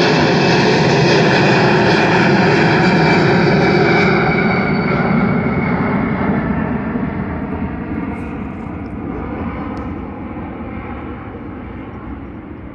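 Airbus A340-300's four CFM56-5C turbofan engines at takeoff climb power, a steady jet sound that starts fading about four seconds in as the airliner climbs away, the higher tones dropping out first.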